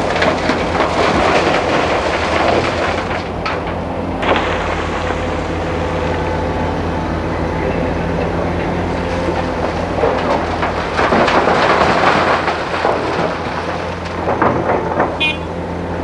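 Hitachi ZX350 hydraulic excavator's diesel engine running steadily under load, with rock and gravel tumbling from its bucket into a steel tipper-truck body. The rumble of the load is heaviest in the first four seconds, stopping sharply just after, and comes again around eleven to thirteen seconds in.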